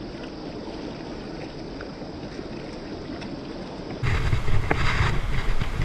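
Steady rush of flowing river water. About four seconds in it turns abruptly much louder, with wind buffeting the microphone over the water.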